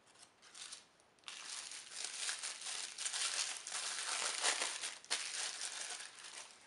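Tissue paper crinkling and crumpling as it is unwrapped by hand: a brief crackle, then continuous crumpling from about a second in.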